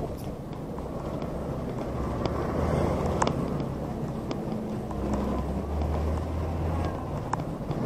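A scooter engine running at low speed with road noise, its low hum growing louder about two seconds in and again around five seconds. A few faint sharp ticks are heard over it.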